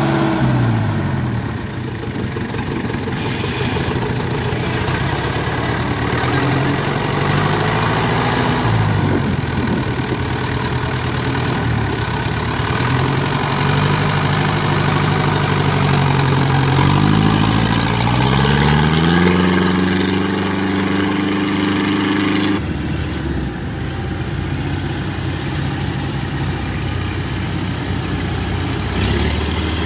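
Engine of a small tracked rice-paddy machine running as it crawls through wet stubble. Its pitch rises as it speeds up about seventeen seconds in and holds higher. A few seconds later the sound changes abruptly to a lower, steady engine note.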